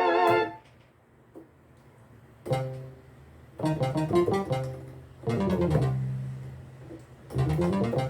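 Arturia Analog Lab V software synthesizer presets played on a keyboard. A held chord with vibrato stops about half a second in. After a short pause comes a plucked, guitar-like patch: chords struck over held bass notes, with a rising bass run near the end.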